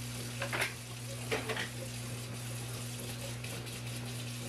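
Kitchen faucet running steadily into a stainless steel sink during hand dishwashing, with two short bursts of scrubbing and handling of dishes about half a second and a second and a half in.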